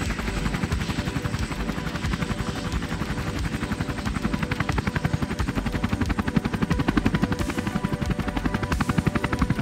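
Bell 505 Jet Ranger X helicopter lifting off and climbing away overhead. The two-blade main rotor makes a rapid, even thudding, with the steady whine of its turboshaft engine behind it, a little louder near the end as it passes over.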